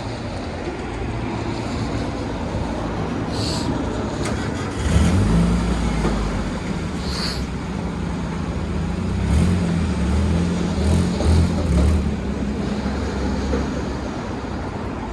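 Mazda Miata driving, engine running under steady road and wind noise. About five seconds in the engine note comes up and pulls harder, then rises and falls with the throttle.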